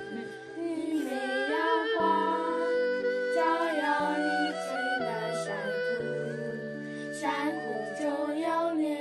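Three young girls singing a song together over recorded backing music of sustained chords that shift every second or two.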